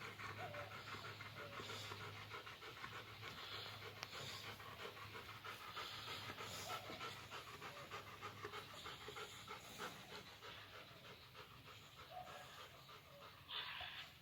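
Fast, even panting breaths that keep going without a break, over a faint steady low hum.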